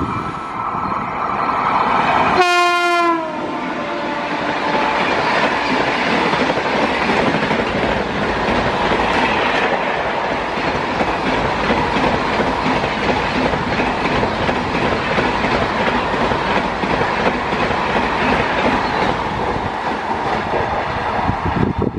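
WAP7 electric locomotive at speed, its horn sounding and dropping sharply in pitch as it passes about two and a half seconds in. The passenger coaches then rush past with a steady roar of wheels and clickety-clack over the rail joints, easing off near the end as the train draws away.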